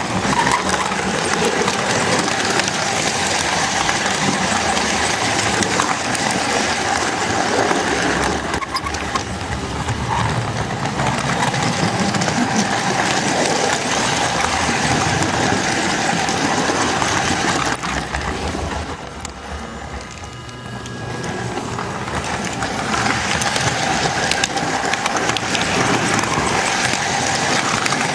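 S-gauge model train running along the track: the Flyonel Docksider locomotive's small electric motor gives a steady whine over the rattle of the wheels on the rails, heard up close from the flatcar it pushes. The sound drops off briefly about two-thirds of the way through, then comes back.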